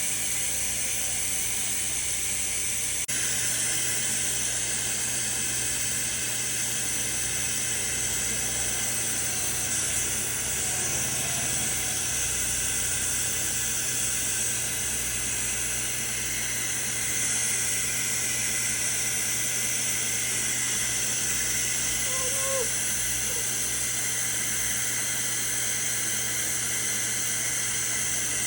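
Steady hiss with a low hum underneath, changing slightly about three seconds in.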